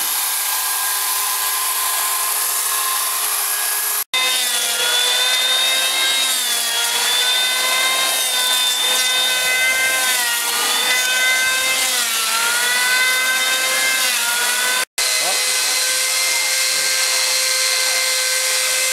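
Three power tools in turn on wood. First an electric chainsaw runs steadily. About four seconds in, an electric hand planer takes over; its motor pitch dips several times as it bites into the log. Near the end, an angle-grinder-type carving cutter runs steadily.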